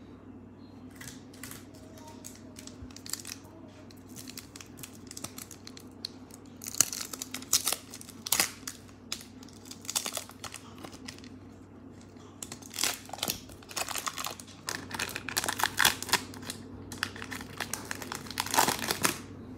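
A 1992-93 Stadium Club basketball card pack's wrapper being torn open and crinkled by hand: faint handling at first, then repeated crackling bursts from about a third of the way in, loudest near the end.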